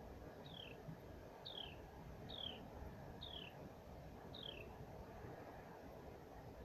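An animal calling faintly: five short chirps, each sliding downward in pitch, about a second apart, over a low steady background rumble.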